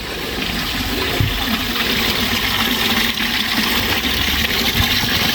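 Natural spring water running at a well, a steady splashing that grows louder through the clip.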